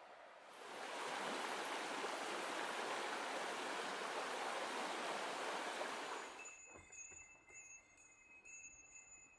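Rushing stream water, a steady even hiss, which cuts off suddenly about six seconds in. It gives way to quieter sound with a small bell-like ringing that pulses about twice a second.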